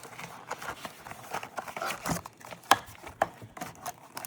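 Wrapper of a trading-card pack crinkling and crackling as it is opened and handled, a run of irregular sharp crackles with one louder snap a little under three seconds in.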